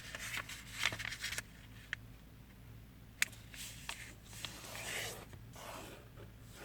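Square origami paper being folded in half and creased by hand: faint rustling and scraping with scattered sharp clicks, one sharper about three seconds in.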